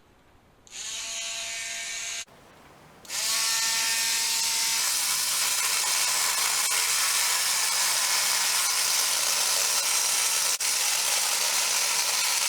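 Dremel rotary tool switched on for about a second and a half, cut off, then started again about three seconds in. Its whine settles into steady high-pitched grinding as it widens the centre hole of an aluminum sprocket.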